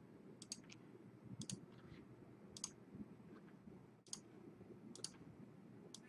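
Faint, sharp clicks about once a second, some coming in quick pairs, from a computer mouse being clicked while searching for the right item on screen.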